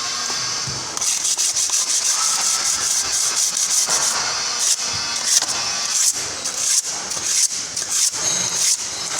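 Sanding a column: an abrasive scraping with a high, hiss-like edge that comes in many short, irregular strokes.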